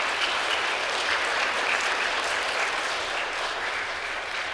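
Congregation of schoolchildren and adults applauding in a church, a steady mass of clapping that eases off near the end.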